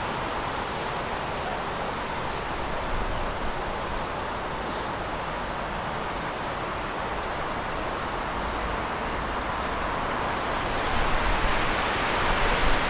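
Steady outdoor riverside ambience: an even rushing noise with no distinct events, and wind starting to buffet the microphone near the end.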